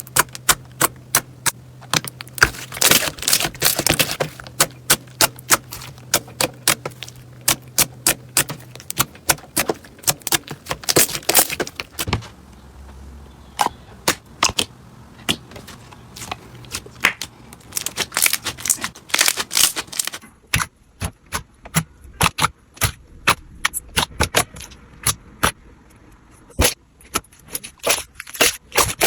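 Slime being squeezed and poked by hand, giving rapid, irregular crackling clicks and pops. The texture of the clicking changes twice, as one slime gives way to another.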